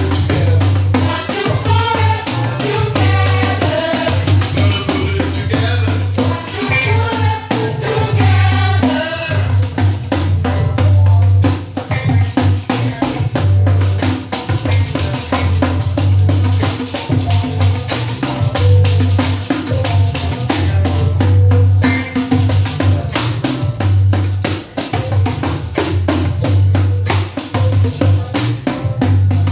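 A 12-inch nylon-headed pandeiro played in a steady rhythm of jingles and head strokes along with a recorded song, which has singing through roughly the first ten seconds and a regular low bass pulse.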